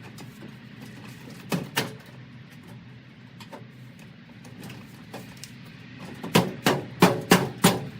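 Sharp clicks and knocks over a low steady hum: two close together early, then a quick run of about six, roughly three a second, near the end.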